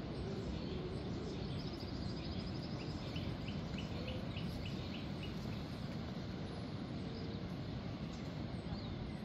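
Steady wash of surf breaking on the beach. From about two to five seconds in, a bird calls a quick run of short repeated notes.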